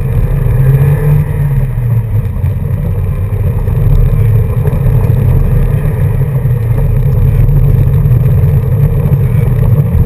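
Car engine running under way with tyres on a gravel road, heard loud from inside the cabin. It is a steady drone whose pitch wavers slightly as the speed changes.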